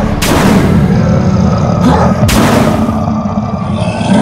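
Two loud, sudden creature-roar sound effects, one just after the start and one about two seconds in, each fading away, over steady background music.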